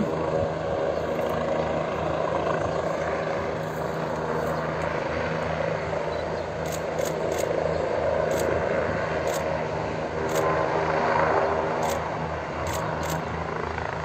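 Forestry coordination helicopter coming in to land, its rotor and engine running with a steady low drone.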